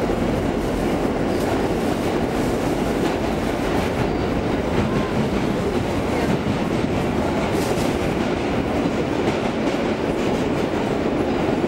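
Inside a Kawasaki R143 subway car under way: the steady rumble and roar of steel wheels on the rails, with occasional clicks of the rail joints.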